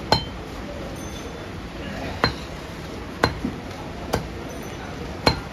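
Heavy butcher's cleaver chopping goat liver on a wooden chopping block: five sharp chops at roughly one-second intervals, each with a brief metallic ring from the blade.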